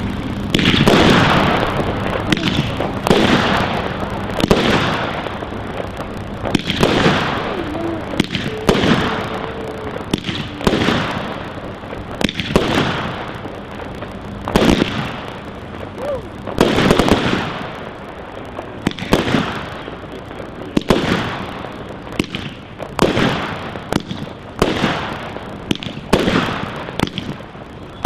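A 98-shot firework barrage cake (Fire One) firing a long string of shots, about one a second, each a sharp report with a short fading tail.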